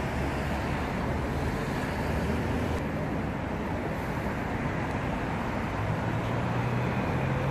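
Steady street traffic noise, a low road rumble with cars driving past.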